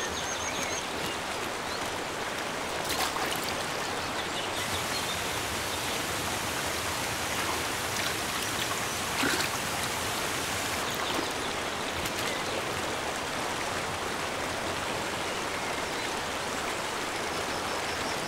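Small waterfall pouring into a foaming pool: a steady rush of falling water.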